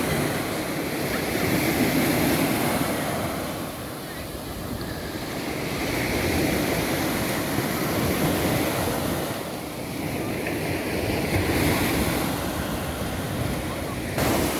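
Black Sea waves breaking on the shore, the surf swelling and ebbing about every four to five seconds, with wind buffeting the microphone. A short, louder burst of noise comes near the end.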